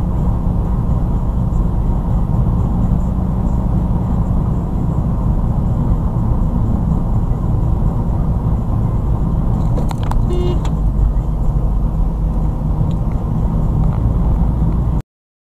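Steady low rumble of engine and tyre road noise inside a car cruising at about 75 km/h, picked up by a dashcam microphone. About ten seconds in there is a short cluster of faint clicks with a brief higher sound, and the sound cuts off suddenly near the end.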